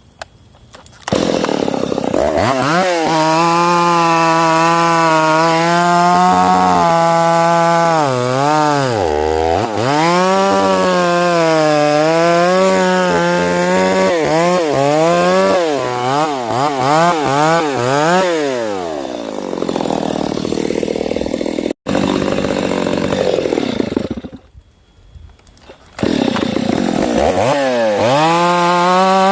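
Stihl MS 250 two-stroke chainsaw at full throttle cutting through sengon wood, its pitch repeatedly dipping and recovering as the chain bites under load. About two-thirds of the way through it slows toward idle and goes briefly quiet, then it is back at full revs near the end.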